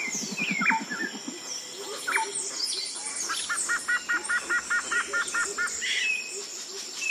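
Woodland birds chirping and calling, several at once. In the middle one bird repeats a short two-part note about five times a second for a couple of seconds. A low rapid pulsing sound comes in the first second.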